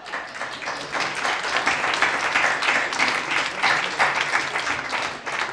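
Audience applauding, the clapping building up over the first second and tapering off near the end.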